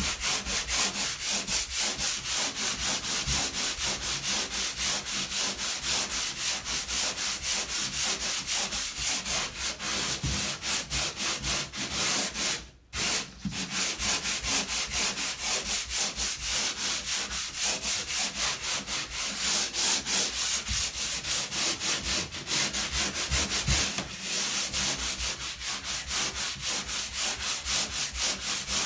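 Drywall wall sander with a replaceable sanding pad rubbed in quick back-and-forth strokes, about three or four a second, over a dried spackle patch on drywall. The strokes pause briefly just under halfway through. This is the dry sanding that smooths a thick, fully dried coat of spackle flush with the wall before painting.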